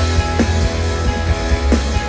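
Live band playing a song: a heavy, steady bass line under held guitar chords, with drum hits about every second and a quarter.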